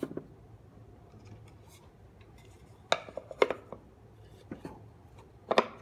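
Wooden knocks and clunks: a wooden lid set down onto a wooden sand tray, two sharp knocks close together about three seconds in, a lighter tap later, and another loud knock near the end.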